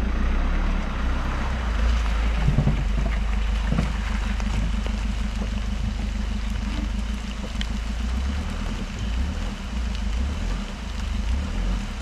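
Mercedes Sprinter van's diesel engine running steadily as the van crawls along a muddy track, with a couple of brief knocks about three and four seconds in.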